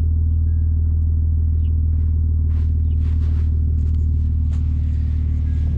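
Acura TL V6 idling steadily through Borla S-Type mufflers and dual tips: an even, low exhaust hum.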